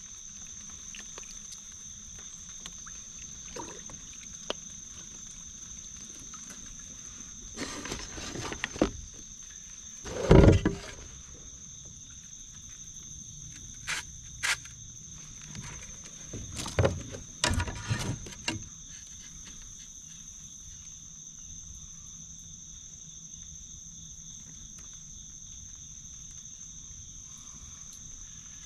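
Steady high-pitched insect chorus. A few short clusters of knocks and rattles in a kayak come and go, the loudest a thump about ten seconds in.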